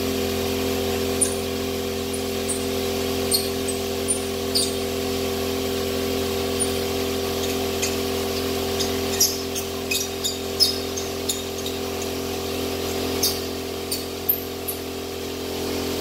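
Air compressor running with a steady hum, with short, sharp high ticks scattered through it, most of them in the second half.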